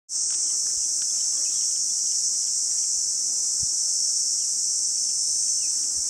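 Insects shrilling in a steady, high-pitched, unbroken chorus in dry African bush.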